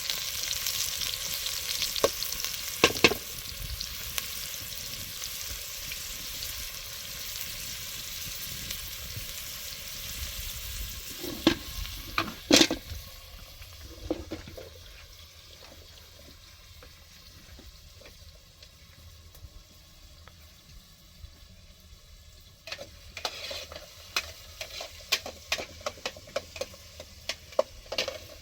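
Food sizzling in a pan, with sharp clicks and knocks of a utensil stirring it. The sizzle fades about halfway through, and a quick run of clicks comes near the end.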